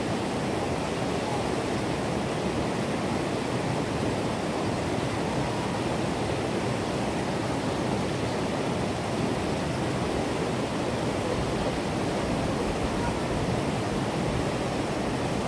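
Steady rushing of white water tumbling over rocks at a small waterfall.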